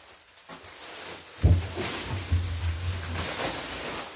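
Thin black plastic wrap crinkling and rustling as it is pulled and bundled off a wooden crate. A thump comes about a second and a half in, followed by a low drone lasting about two seconds.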